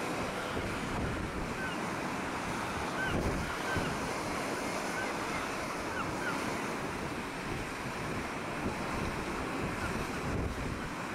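Rough sea surf breaking, with wind buffeting the microphone. Faint short seabird calls come now and then in the first half.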